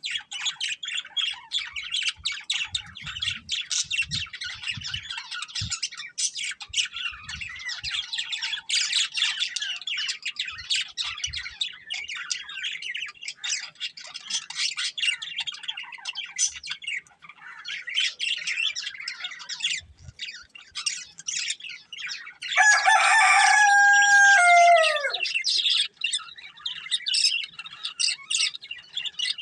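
Budgerigars chattering and warbling, a dense run of rapid high chirps. Near the end a louder, drawn-out call of about two and a half seconds rises above them and falls in pitch at its close.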